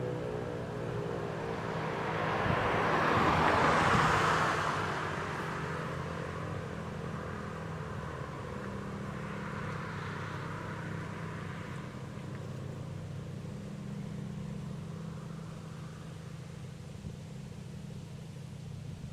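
ASC T-128 DC outdoor warning siren winding down, its falling tone fading out over the first couple of seconds. A road vehicle passes, loudest about four seconds in, over a steady low hum.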